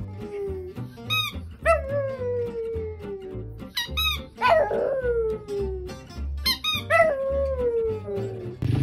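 A squeaky toy ball squeaks three times, and each squeak is followed by a small dog's long howl that slides down in pitch. Background music with a low, regular beat runs underneath.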